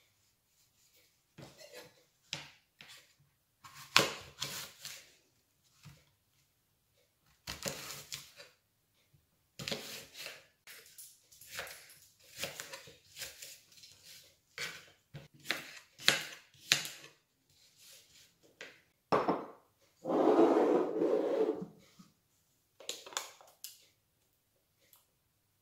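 Kitchen knife cutting an apple into pieces on a plastic cutting board: irregular knocks of the blade on the board with short cutting sounds between them. About twenty seconds in comes a longer, louder noise of about a second and a half.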